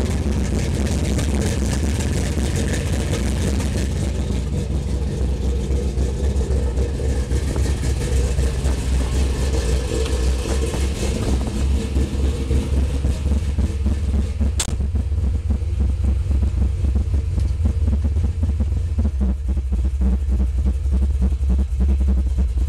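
1968 Chevy C10 pickup's engine idling with a steady low exhaust rumble. About two-thirds of the way through, a single sharp knock, the cab door shutting; after it the engine is heard more muffled, from inside the cab.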